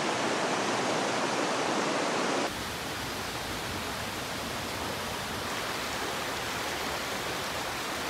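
Stream rapids rushing steadily over rocks. About two and a half seconds in, the sound cuts to a slightly quieter, deeper rush of water.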